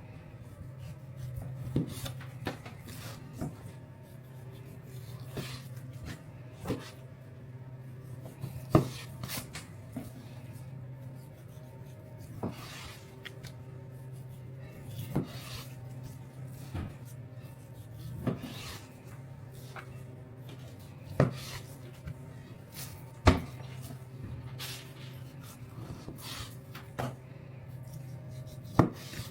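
Irregular sharp knocks and clicks, one every second or two, over a steady low hum; two of the knocks, about a third of the way in and about four-fifths of the way in, stand out as the loudest.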